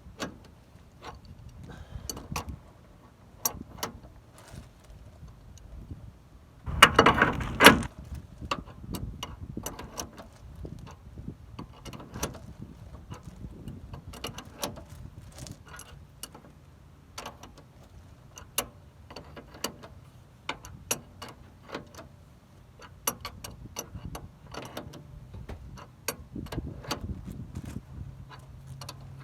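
Irregular metallic clicks and ticks of an adjustable wrench being worked on a bolt, slowly pressing a polyurethane suspension bushing and its sleeve into place. About a quarter of the way in comes one loud, harsh burst lasting about a second.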